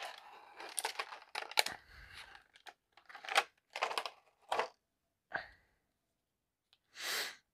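Thin clear plastic bag crinkling and tearing as it is opened and handled for about two seconds, then a handful of short separate rustles and one longer rustle near the end.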